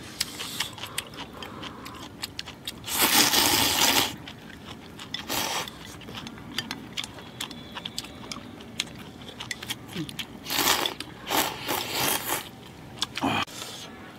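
Close-up eating sounds of hotpot being eaten from bowls: chopsticks clicking against the bowls, chewing, and several louder slurps, the longest about three seconds in.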